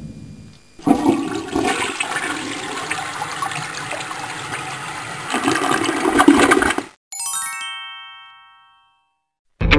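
A toilet flushing for about six seconds, stopping abruptly, followed by a single bright chime that rings and fades away.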